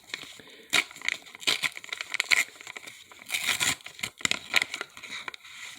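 Pokémon card pack wrapper crinkling and tearing in irregular rustling bursts as it is pulled open by hand.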